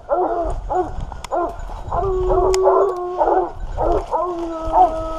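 Grand Bleu de Gascogne hounds baying at a wounded wild boar they hold at bay: a string of short bays, broken twice by a long drawn-out howling bay.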